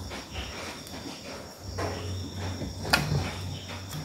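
Steady high insect chirring in the background. A low hum comes in a little before halfway, and one sharp click sounds about three seconds in.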